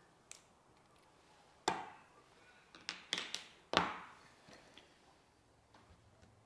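A handful of sharp knocks of hard objects, each with a short ring. Two louder ones come about two seconds apart, with a quick run of smaller clacks between them.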